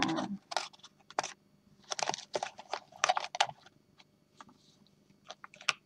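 Fingers handling a cardboard oracle-card box and its deck of cards: a series of short taps, clicks and light scrapes, bunched about two to three seconds in and again near the end.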